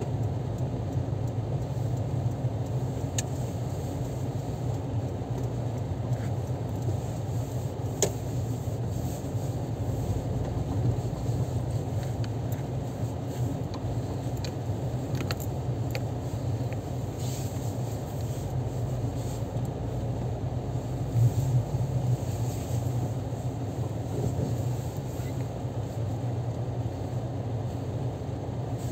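Steady low hum of a car's engine and tyres heard from inside the cabin while driving slowly, with a few faint clicks.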